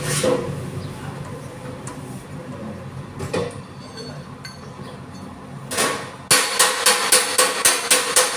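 Body finishing hammer striking a sheet-metal panel over a dolly, starting suddenly about six seconds in as a steady run of about three blows a second; before that there are only a few scattered knocks.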